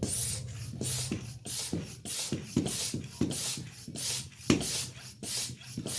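High-pressure hand pump being stroked steadily to fill a PCP airgun's small air tank, a hiss of air with each stroke, about one and a half strokes a second.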